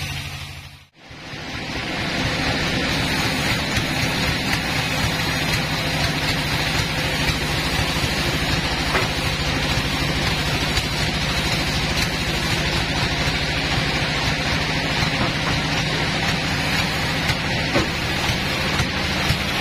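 Band sawmill machinery running steadily: a low engine rumble with a broad hiss over it. The sound drops out briefly about a second in, then returns.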